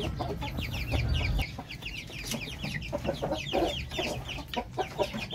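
Young half-breed Brahma chickens peeping: many short, high, falling chirps, several a second, from a group of birds. A low rumble runs under them for the first second and a half.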